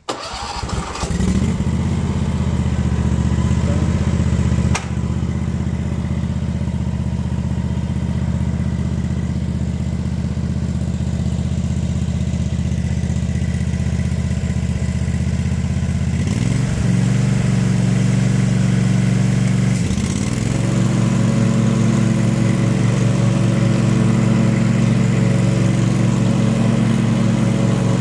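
Exmark Staris 32 stand-on mower's engine starting and then running steadily, with a single sharp click about five seconds in. About sixteen seconds in its note steps up to a higher pitch, dips briefly a few seconds later, then holds steady at the higher pitch.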